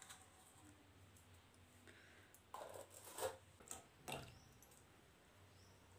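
Mostly near silence, with a few faint clicks and scrapes between about two and a half and four seconds in: a spoon stirring and lifting melted jaggery syrup in a steel pot.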